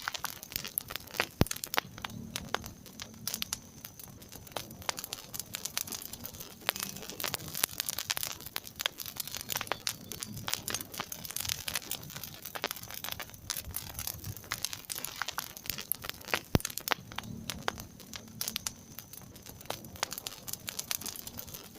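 Wood fire crackling in a fireplace, with constant small snaps and two louder pops over a soft low rumble of the flames.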